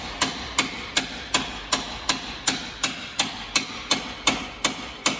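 Hammer striking metal in a steady, even rhythm, about three blows a second, each blow sharp with a short ring, as a part is driven into place under a Humvee's front end.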